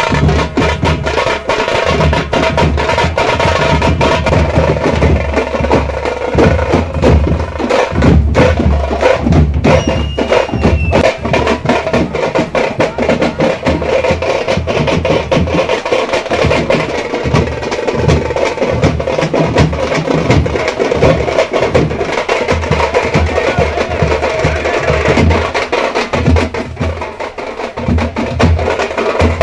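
Fast, loud drumming: a dense, unbroken rhythm of drum strokes with heavy low beats, the kind of drumming that accompanies festival dancing.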